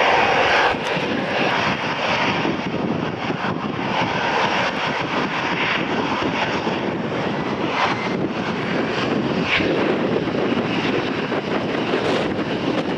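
A passenger aircraft's engines making a steady rushing noise, with wind buffeting the microphone.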